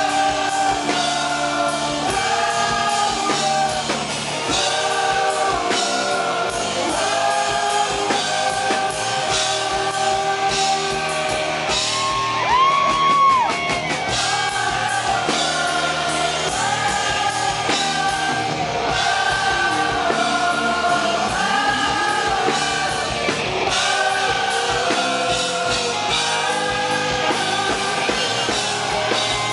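Live rock band performance: a male lead singer singing into a handheld microphone over the band's drums, heard from the audience. A long high note is held about twelve seconds in.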